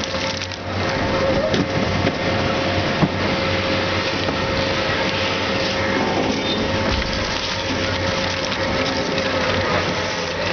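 Twin-shaft shredder slowly feeding radiators between its hooked cutter discs: a steady mechanical din of grinding and crunching metal over a constant whine from the drive. One sharp crack about three seconds in.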